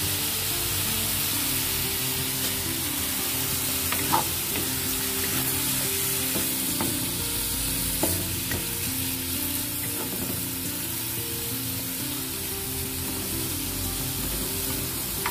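Sliced asparagus and wood ear mushrooms sizzling in a pan with a little water, stirred with a wooden spatula, with a few sharp knocks of the spatula against the pan.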